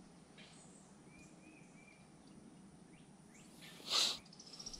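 Quiet outdoor ambience with a few faint bird chirps, then a brief sharp noise about four seconds in.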